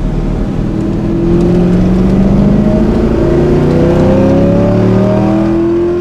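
Car engine accelerating hard as traffic clears, its pitch rising, dropping back and rising again several times as it shifts up through the gears.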